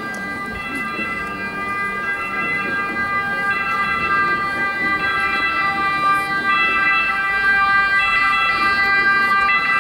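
Slow procession music of long held chords, the notes changing every second or so, growing louder.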